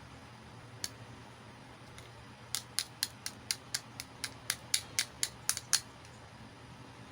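One sharp click, then a quick run of about fourteen sharp clicks at about four a second, as small hard toy pieces are handled.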